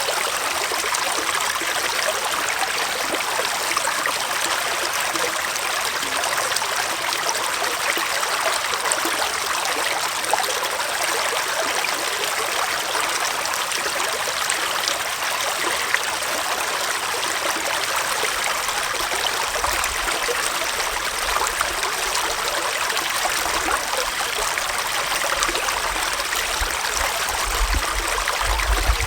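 Small forest stream flowing, a steady even rush and trickle of water. A low rumble joins in during the last ten seconds.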